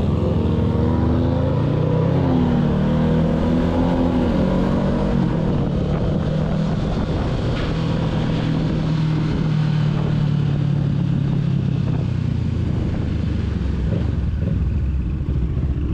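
Kawasaki ZX-6R 636's inline-four engine running at low road speed. Its pitch rises and falls with the throttle for the first few seconds, then holds fairly steady, over road and wind noise.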